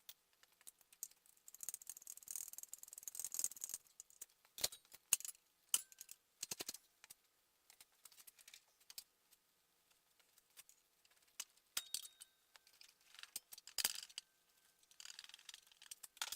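Metal hand tools clicking, clinking and rattling in irregular bursts, as of work under a vehicle.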